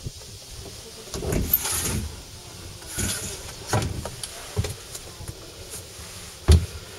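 Irregular knocks, scuffs and thuds of someone moving into a small boat's wheelhouse, with one sharp, loud thump near the end.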